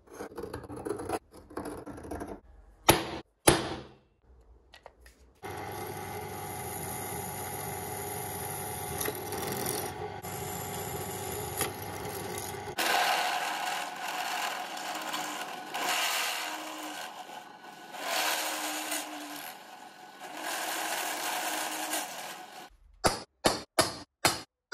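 Caliper jaw scratching layout lines into steel square tube, with a few sharp clicks. Then a drill press runs and drills into the steel tube, its sound changing about halfway through. Near the end comes a quick run of sharp hammer taps on a center punch, about three a second.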